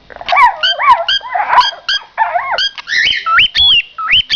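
Pet birds calling loudly: a quick string of chirps and swooping whistles that rise and fall in pitch, several calls a second.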